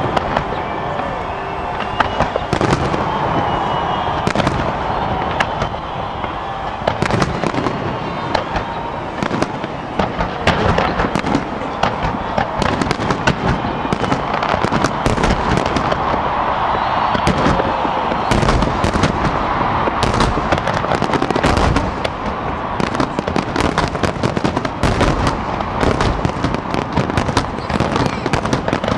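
Fireworks display: aerial shell bursts banging and crackling one after another. The bangs come thicker over the last ten seconds or so.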